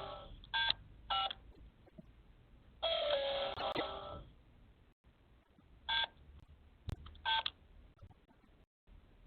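Apartment-building entry intercom panel: short keypad beeps as flat numbers are punched in, and a call ringing tone of about a second and a half, as it rings an apartment. A sharp click comes near the end.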